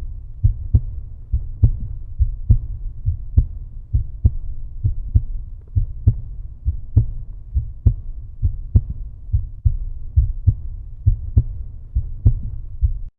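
Outro music: a deep, low beat thudding a little more than once a second over a steady low rumble, cutting off abruptly near the end.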